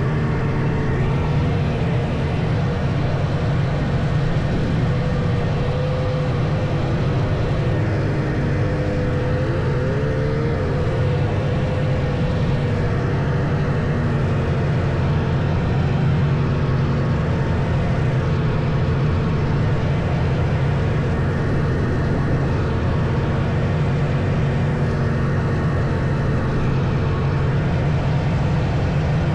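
Vintage snowmobile engines running steadily, with a pitch that rises and falls a few times about five to eleven seconds in.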